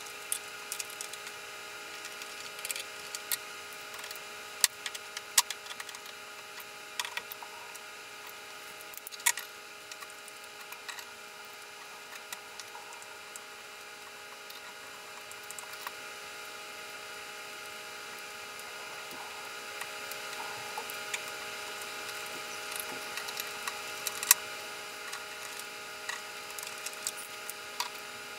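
Hand tools at work fitting an iron strap hinge to a wooden lid: scattered, irregular clicks, taps and light knocks of a screwdriver, awl and hand brace on the hinge and wood. A steady hum runs underneath.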